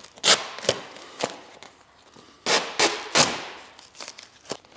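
Gloss vinyl wrap film being pulled back off a car's door panel: a string of sharp crackling snaps as the adhesive lets go and the film crinkles, with short pauses between them.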